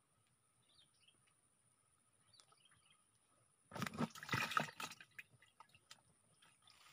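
A short burst of water splashing, about a second long, starting near the middle, with faint ticks and rustles before and after it.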